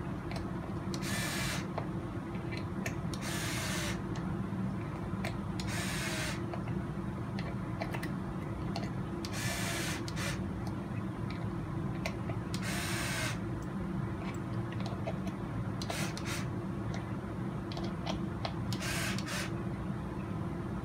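Cordless electric screwdriver running in several short bursts a few seconds apart, driving small screws into the beadlock ring of an RC crawler wheel, over a steady low hum.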